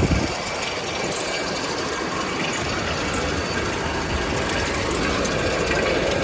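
Steady running noise of a rotary continuous carbonization furnace line, its motors and turning drum making an even mechanical din with a faint steady whine.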